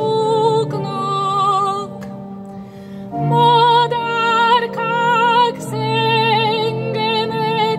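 A woman singing a Hungarian Marian hymn with vibrato over sustained pipe-organ chords; her voice pauses for about a second between lines while the organ holds.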